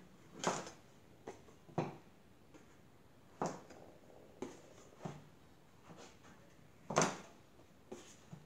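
A wide steel blade cutting and scraping through soft clay on a board, trimming the edges of a pressed clay tile. The sound comes as a series of separate short scrapes and knocks, the loudest about seven seconds in.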